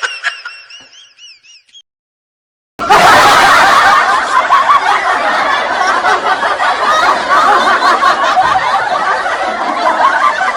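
Laugh-track sound effect: a large crowd laughing together, many voices overlapping in one dense sustained wash, starting abruptly about three seconds in. Before it, the tail of a wobbling high tone fades out into a second of silence.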